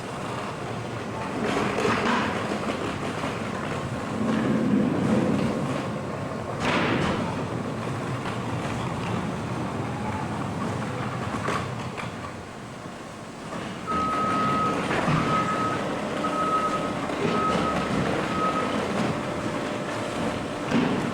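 CRAM-A-LOT HX-72-W baler and its 60-inch conveyor running, a steady mechanical clatter with louder surges and knocks. A string of about five short, evenly spaced beeps sounds in the second half.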